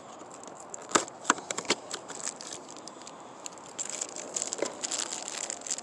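Cardboard packaging clicking a few times about a second in, then a small clear plastic bag crinkling as it is pulled open.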